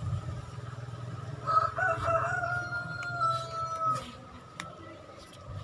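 A rooster crowing once in one long call of about two and a half seconds, starting about a second and a half in and dropping slightly in pitch before it stops. Under it runs a low rumble that fades about four seconds in.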